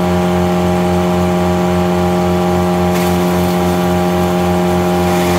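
Tractor engine driving a PTO forage chopper that is chopping grass. It is a steady, loud machine hum with a low pulsing beat about four times a second.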